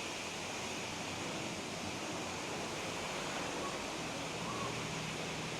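Water spraying steadily from a hose onto a car's ceramic-coated paint, an even hiss of running water rinsing the bodywork.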